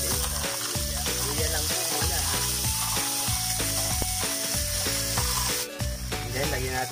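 Green mussel shells clattering as they are pushed off a plate into a hot frying pan with a metal spatula, with a sizzling hiss from the pan that cuts off near the end. Background music plays underneath.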